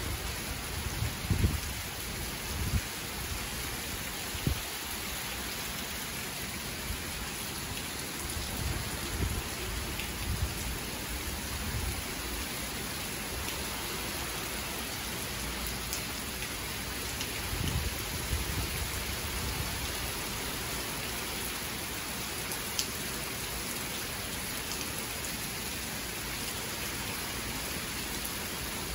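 Steady heavy rain of a tropical storm falling on a lawn and patio roof, with a few low rumbles swelling up now and then.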